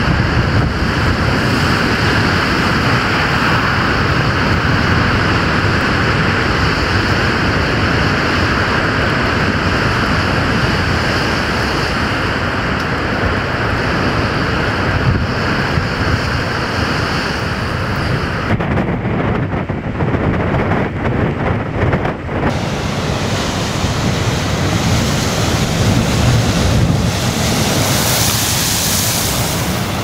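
Storm waves crashing and breaking on a rocky shore in a gale, the surf a continuous loud rush, with strong wind buffeting the microphone.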